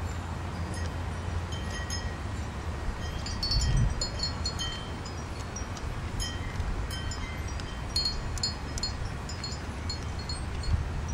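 Light metal chimes tinkling at irregular moments over a low wind rumble on the microphone, with a dull low thump about four seconds in.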